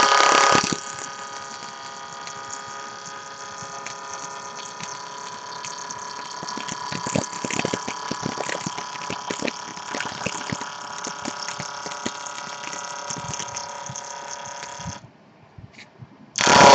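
JET wood lathe spinning a wooden spindle blank at about 2,000 rpm while a CNC back-knife cuts it: a steady machine whine over a hiss of cutting, with scattered sharp ticks of chips and knife contact. It stops abruptly about fifteen seconds in and starts again, loud, just before the end.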